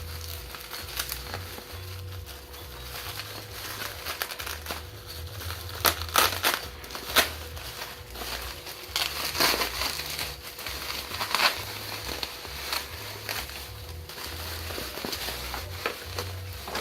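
Plastic packaging wrap crinkling and crackling as it is handled and pulled off, in irregular rustles and sharp crackles.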